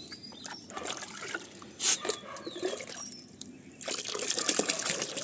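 Water splashing and dripping in a bucket of soaking banana peels as they are handled. One sharp splash comes about two seconds in. Near the end there is a longer, denser rush as water and peels are poured into the bucket.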